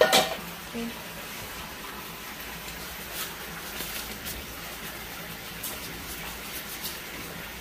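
Bamboo-leaf-wrapped rice dumplings being packed by hand into a stainless steel pot: a knock right at the start, then scattered light crackles and taps of the dry leaf wrappers and straw strings, over a steady background hiss.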